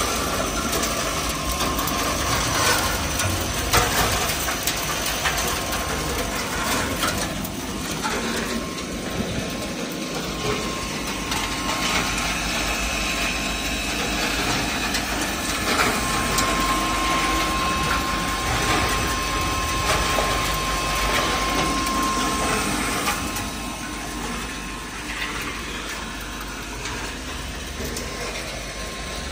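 PCB electronic component dismantling machine running: a steady machine noise with a continuous clicking rattle of loose components. A faint steady whine is heard through the middle, and the noise drops a little near the end.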